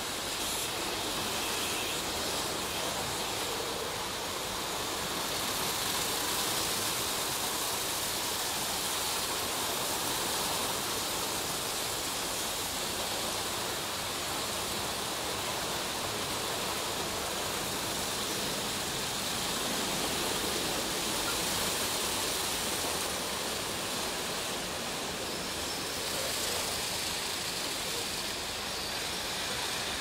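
Stargate S6 automatic car wash gantry at work: its spinning anti-scratch brushes and water spray make a steady, even rush of noise.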